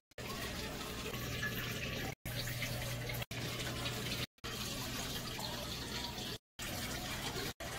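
Aquarium water running and splashing steadily, with a faint low hum under it, in roughly one-second snippets broken by brief silent gaps.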